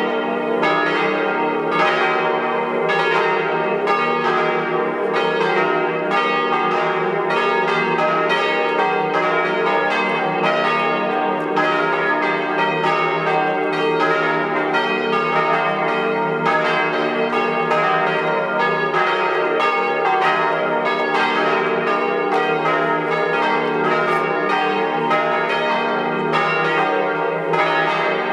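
Swinging church bells from a five-bell set tuned diatonically in E-flat, ringing together in a continuous peal, with many overlapping strokes and no pause.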